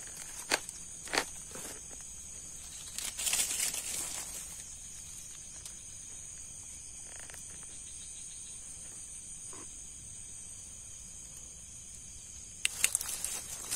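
Steady high-pitched chirring of night insects in a swamp, with a couple of sharp clicks about a second in and bouts of rustling and handling noise around three seconds in and again near the end.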